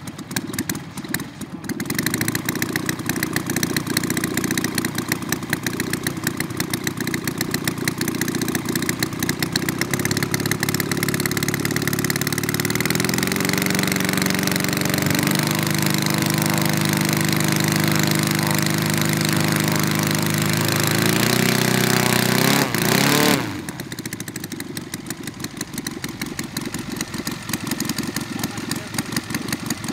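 Valach 210 engine of a large-scale CARF Models Fly Baby radio-controlled plane running on the ground with its propeller turning. It idles, is throttled up in steps from about ten seconds in to a steady high-speed run, then drops sharply back to idle a little after twenty seconds.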